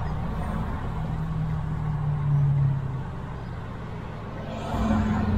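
Road traffic heard from inside a car moving in slow traffic: a steady low engine and road hum with tyre noise, growing louder near the end as traffic moves alongside.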